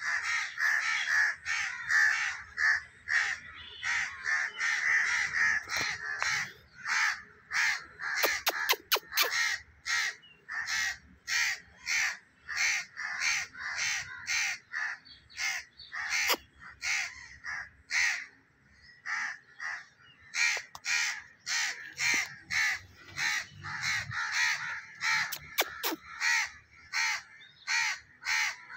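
Birds calling on and on, short calls coming about two a second, with a quick cluster of sharp clicks about eight seconds in and again near the end.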